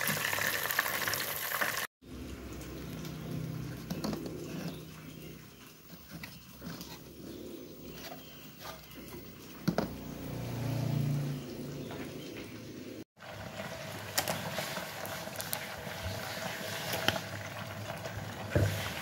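Oil sizzling around frying fish in a pan, cut off abruptly after about two seconds. Next comes a quieter stretch of handling sounds with a few sharp knocks. After a second abrupt cut, about thirteen seconds in, hot oil hisses and crackles with many small pops in a cooker pot.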